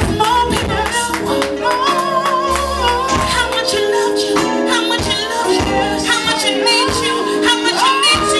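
Live soul-gospel band: a woman sings with long held, bending notes over keyboard chords and a drum kit.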